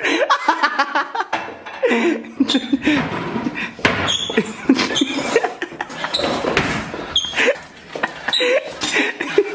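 A man laughing hard in repeated fits, his voice breaking into short bursts with breathy stretches between.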